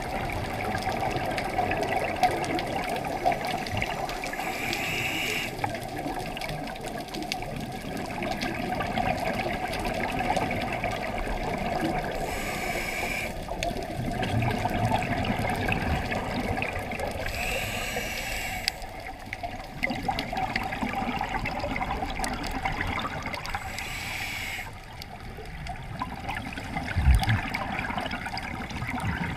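Underwater scuba breathing through a regulator: a hiss of breath roughly every five or six seconds over a steady rush and gurgle of exhaled bubbles. A dull knock comes near the end.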